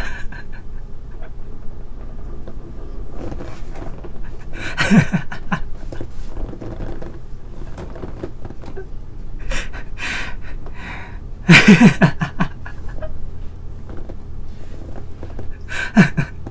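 A man laughing in three short bursts of quick breathy pulses, about five seconds in, near the middle and again near the end, over a low steady hum.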